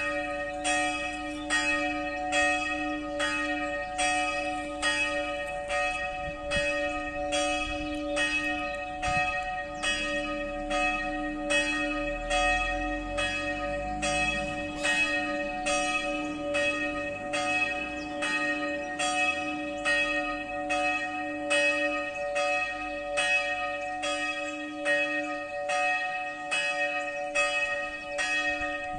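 Church bell ringing for noon, struck in even, regular strokes about once a second, its tone ringing on between strokes.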